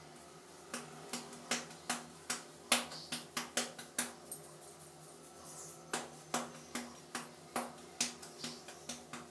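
Fingertips scratching and rubbing through long, thick hair on the scalp: a run of short, sharp crackling scratches about two to three a second, with a short pause around the middle.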